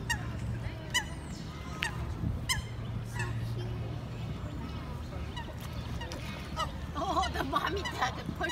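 Greylag geese calling: a series of short calls, several in the first three seconds, then fewer. A steady low hum lies underneath.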